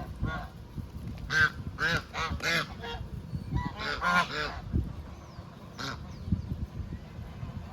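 Geese honking: a run of short, harsh calls in the first three seconds, another cluster about four seconds in, and a single call near six seconds.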